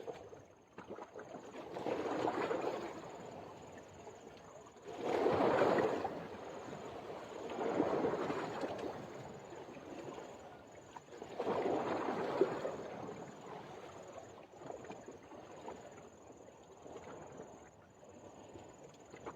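Water washing in swells every few seconds, a rushing sound that rises and falls.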